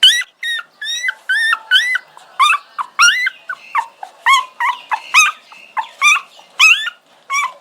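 A dog whining: a quick run of short, high-pitched whimpering cries, about two to three a second, each bending up and then down in pitch.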